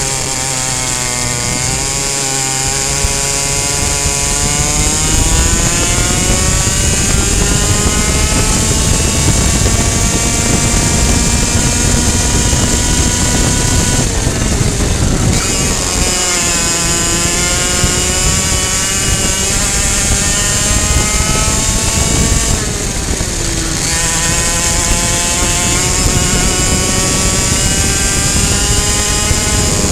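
High-revving two-stroke racing kart engine at full throttle, climbing steadily in pitch along the straights and dropping sharply twice as the driver lifts and brakes for corners, then pulling back up through the revs.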